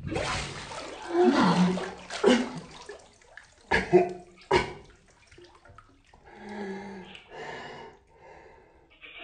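Water sloshing and splashing in a bathtub as a person moves about lying in it, with three sharp splashes about four seconds in. The person in the water makes a few short vocal sounds.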